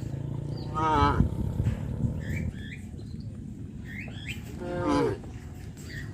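Cattle mooing: two moos, one about a second in and one about five seconds in.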